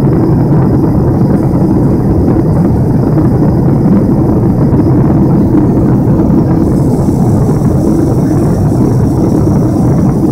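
Boeing 747 cabin noise in flight just after takeoff: the steady low rumble of the jet engines and rushing air, heard from inside the cabin at a window seat, loud and unbroken.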